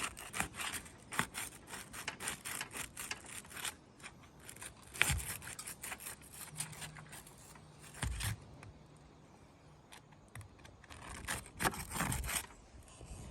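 Asphalt roof shingles being pried up and unsealed: irregular scraping and crackling as the brittle shingles tear, with a dull knock about eight seconds in.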